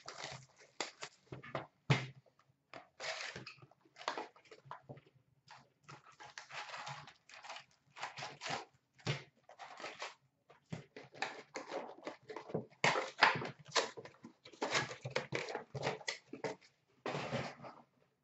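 Hockey card packs being pulled from a box and torn open by hand: pack wrappers crinkling and tearing in short irregular bursts, with cards slid and shuffled between them.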